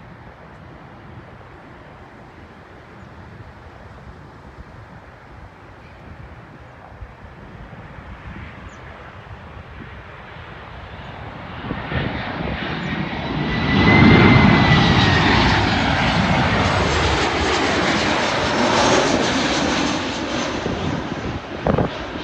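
Boeing 737-800 jet airliner's CFM56 turbofans passing close on arrival. A faint distant roar builds from about halfway through to a loud peak, with a high whine that slides slightly down in pitch. It stays loud for several seconds, then eases off near the end.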